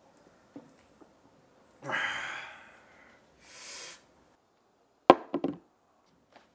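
A man breathes out hard after downing a shot of liquor, then lets out a second hissing breath. About five seconds in, a glass tumbler is set down on a wooden table with a sharp knock, the loudest sound, followed by two smaller knocks.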